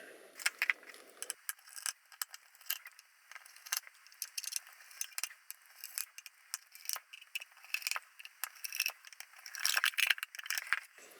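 Irregular small metallic clicks and rattles of a screwdriver working on the captive screws of a machined aluminium camera cover, with a denser flurry of clicks near the end.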